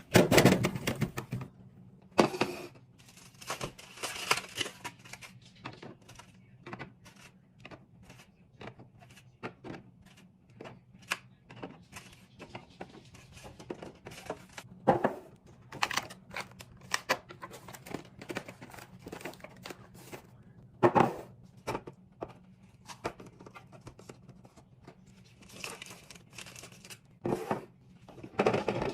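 Plastic food packaging crinkling and tearing, with containers tapping and clicking as they are handled and set down one after another while a fridge is stocked. A faint steady hum runs underneath.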